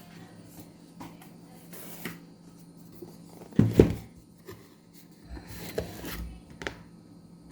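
Packaging being handled and opened by hand: scattered rubbing and scraping, with one loud knock a little past halfway and a low scrape shortly after.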